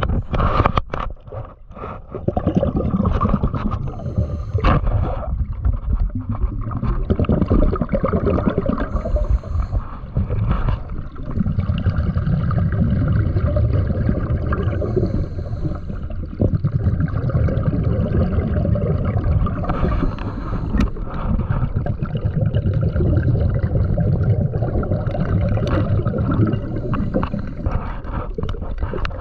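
Underwater noise heard while diving: a continuous low rumble with gurgling and scattered sharp clicks.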